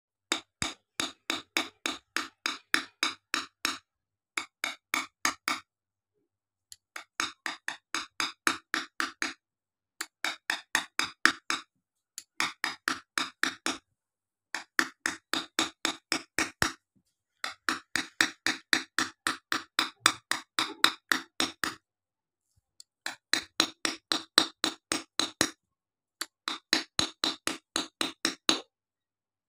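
A hand tool tapping on a glass sheet, quick sharp clicks at about five a second. The taps come in runs of one to four seconds with short pauses between them.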